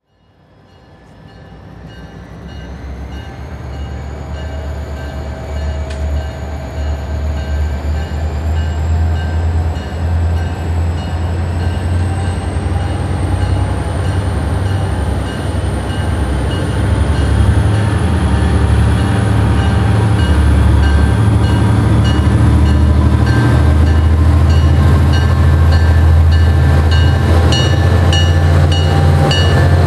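EMD GP39-2 diesel-electric locomotives, turbocharged 12-cylinder EMD 645 engines, working under power as they pull a freight train toward the listener, a loud steady low rumble that grows louder. A thin high whine rises slowly in pitch throughout, and quick regular ticks come in over the last few seconds.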